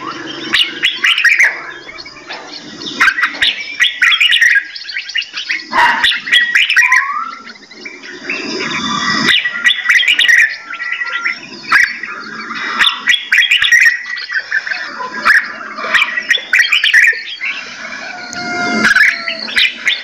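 Many small songbirds in an aviary chirping and calling over one another: a dense, continuous chorus of sharp chips, twitters and short whistled notes, including a brief rising whistle about seven seconds in.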